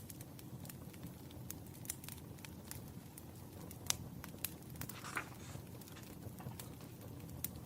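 Wood fire crackling: irregular sharp pops and snaps over a low steady rumble, with one louder pop about four seconds in and a brief hiss about a second later.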